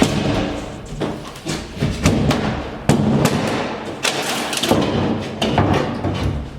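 Background music with heavy percussion: a run of loud, irregular thumps and knocks.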